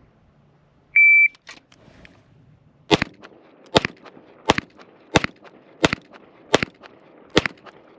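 A shot timer beeps once, then a Springfield Armory Prodigy 9mm pistol fires seven shots at an even pace, a little under a second apart.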